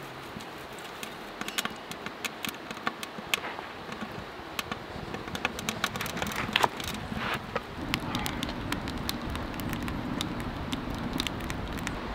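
Wood shavings and split kindling catching fire and crackling, with irregular sharp pops over a soft rush of flame. The fire grows louder as it takes hold about halfway through.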